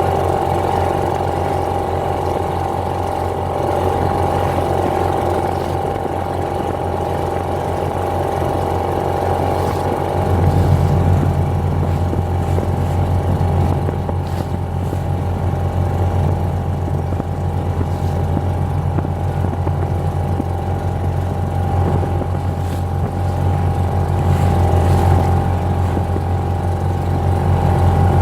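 British Seagull two-stroke outboard motor running steadily under way, with a steady low note that grows stronger about ten seconds in.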